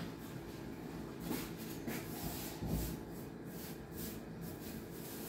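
Hands scattering and rubbing flour over a granite countertop: soft brushing and a few light taps, over a steady low hum.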